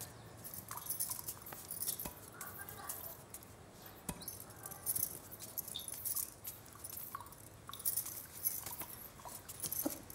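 Faint, scattered small clicks and light metallic jingles, the quiet sound of household movement.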